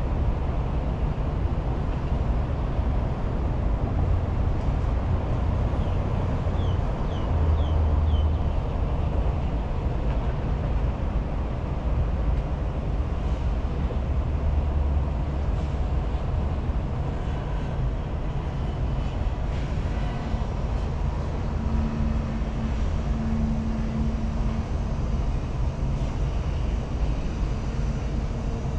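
Steady low rumble of outdoor city ambience, with four quick high chirps about seven seconds in and a faint steady hum partway through.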